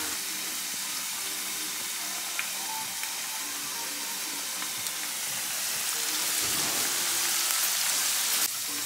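Potato wedges deep-frying in hot oil in a frying pan: a steady, crackling sizzle that grows a little louder about six seconds in.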